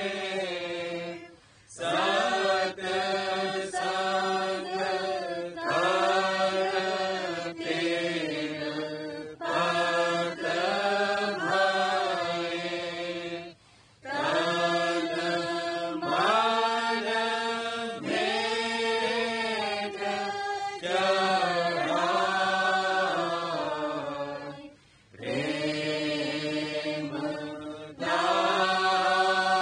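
Devotional chanting of a Radhasoami hymn (shabd path), sung in long melodic phrases with short pauses between them.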